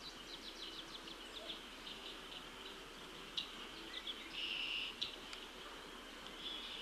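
Small birds chirping repeatedly in quick notes, with a short buzzy trill about four and a half seconds in.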